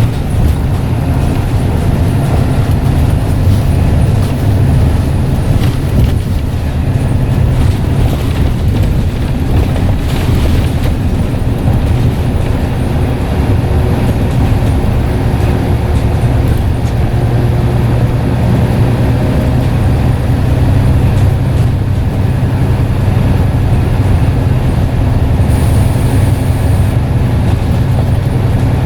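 Scania N94UD double-decker bus under way, its diesel engine running steadily with a low drone.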